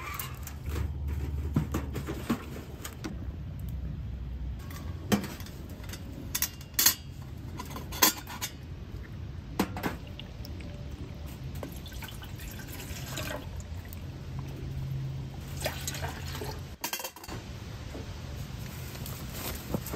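A drink poured from a bottle into a plastic cup, the liquid filling it, with scattered sharp clinks and knocks from handling the wood stove, its kettle and the bottle.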